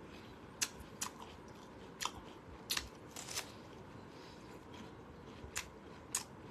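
A person biting and chewing a crunchy piece of food close to the microphone: about seven sharp, crisp crunches at irregular intervals.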